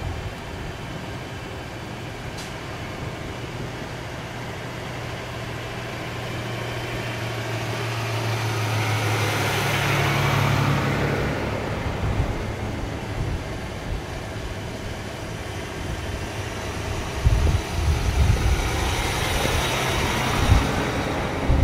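Diesel semi truck pulling an aluminium end-dump trailer driving past close by, its engine and tyres growing louder to a peak about halfway through and then fading. Near the end a second dump truck drives by with wind gusting on the microphone.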